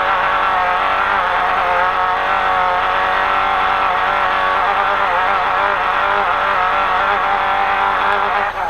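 Off-road race truck engine running hard at high revs, its pitch wavering slightly as the throttle varies, over a noisy wash of driving sound, with a brief drop near the end.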